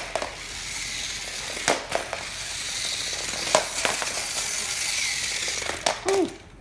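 Motorized Trackmaster Percy toy train running on a plastic track: a steady whirring, rattling motor and wheel noise, with sharp plastic clacks about every two seconds and a brief squeak near the end.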